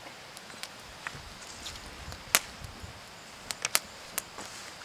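Small twig fire crackling, with scattered sharp pops: one loudest about two seconds in and a quick run of three a little later.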